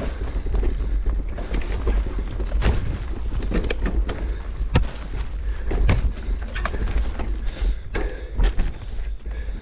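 Mountain bike rolling fast over a dirt forest trail: a steady low rumble with frequent irregular knocks and rattles as the bike jolts over roots and bumps.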